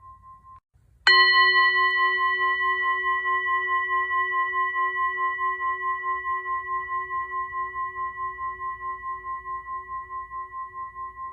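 Singing bowl struck once about a second in, then ringing with a pulsing waver of about four beats a second and fading slowly. The last of an earlier ring cuts off just before the strike.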